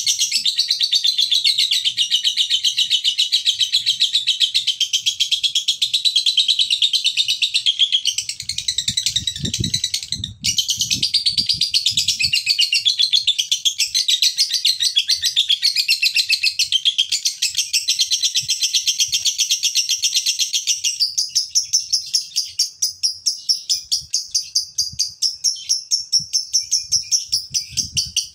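Male lovebird giving its long, continuous 'ngekek' chatter: a rapid, high, unbroken stream of chirps, with a brief break about ten seconds in and a few low thumps around then. From about two-thirds of the way through the chatter turns into slower, separate chirps.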